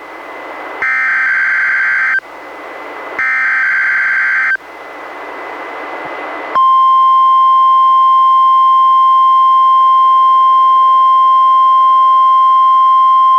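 NOAA Weather Radio alert data header (SAME): two short bursts of warbling two-pitch digital tones about a second apart, with radio hiss between them. About six and a half seconds in, the steady 1050 Hz warning alarm tone starts and holds.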